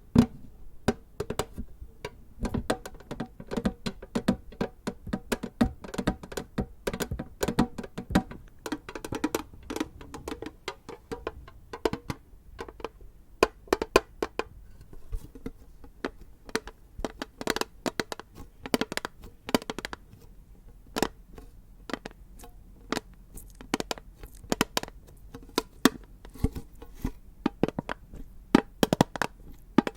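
Fingers tapping and handling a tin container: quick, irregular metallic taps and clicks, several a second, with a little ringing after the strikes in the first half.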